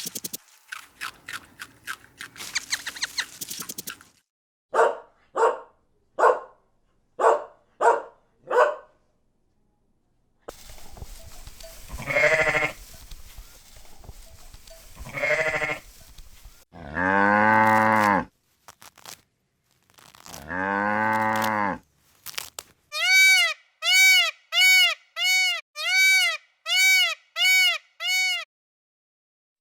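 A run of separate farm-animal clips, mostly bleating calls that fit sheep or goats. There are six short calls, then two long, low calls in the middle, then about ten quick, evenly spaced higher calls near the end.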